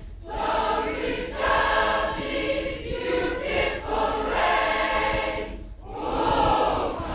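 A large choir of mostly women's voices singing together in long held phrases, with short pauses for breath between them.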